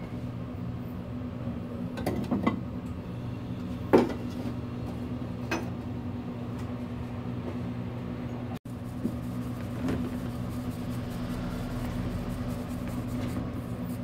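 Electric mill grinding buckwheat, running with a steady low motor hum, with a few light knocks and clinks; the sharpest knock comes about four seconds in.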